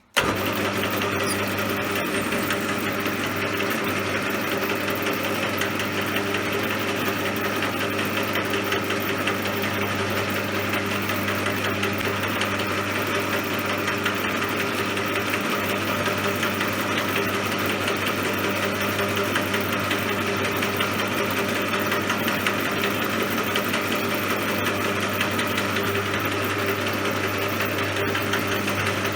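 CJM360 metal lathe running steadily, with an even machine hum that starts abruptly and holds a constant pitch and level.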